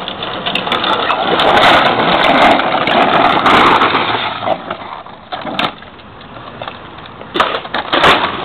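Hard plastic wheels of a Green Machine ride-on trike rolling and grinding on asphalt, a loud rough rumble that eases off about five seconds in. Sharp clattering knocks follow near the end.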